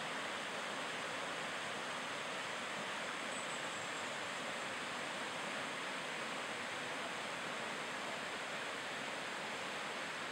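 A fast river running over rocky whitewater rapids: a steady, even rush of water.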